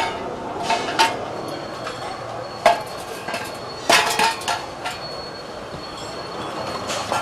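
Metal clanks and knocks: about half a dozen sharp, ringing strikes at irregular intervals over steady background noise.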